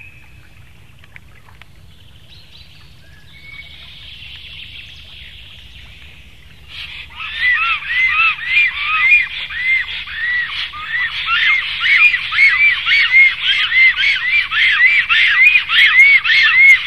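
Black storks calling at the nest: from about seven seconds in, a loud, fast, unbroken series of short whistled notes, each rising and falling in pitch. Before that only a faint high hiss with a few thin calls.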